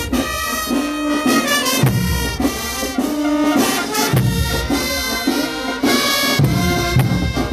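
Marching brass band playing a tune: held brass notes over bass and snare drum beats.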